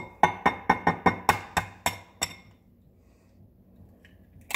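An egg tapped against the rim of a glass bowl to crack it: about ten sharp clinks in quick succession, roughly four a second, stopping a little over two seconds in, with one more click near the end.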